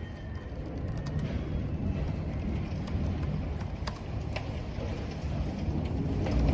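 Stormy wind blowing in a low, gusting rumble, with rain and a few scattered sharp clicks.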